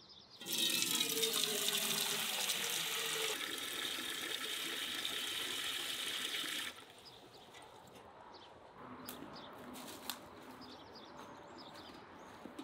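Water from an outdoor tap gushing into a large aluminium pot, filling it. The rush starts about half a second in and cuts off suddenly a little past halfway, leaving only a faint background.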